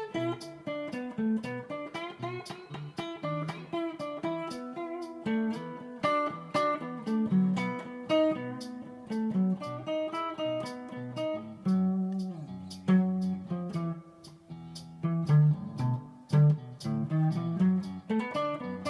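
Squier Telecaster 70s Thinline electric guitar played through a Fender Super-Sonic tube amp: a steady run of picked single notes and chords, several notes a second.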